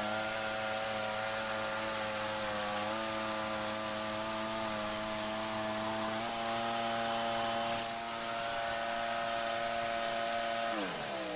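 Wood-Mizer LT15 band sawmill running steadily as it cuts through a hard maple log, its hum shifting slightly in pitch a few times. Near the end the pitch falls as the mill slows down.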